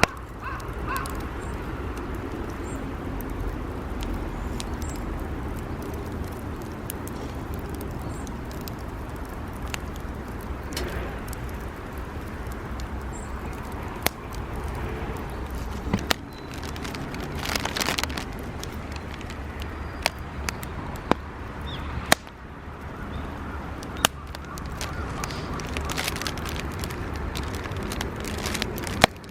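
Scrap-wood campfire burning, with scattered sharp pops and crackles over a steady low rumble.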